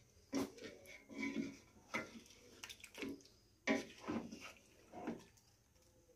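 Wooden spatula stirring chicken pieces in gravy in a metal pot: irregular soft knocks and scrapes against the pot, about six of them.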